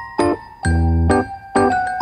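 Background music: keyboard chords over a low bass, struck about twice a second.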